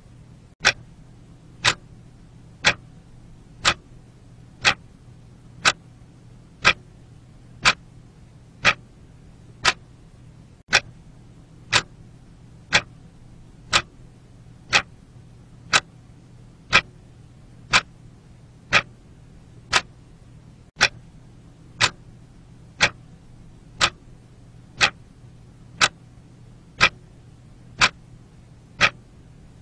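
Quartz analog alarm clock ticking, one sharp tick a second. A faint steady low hum lies underneath.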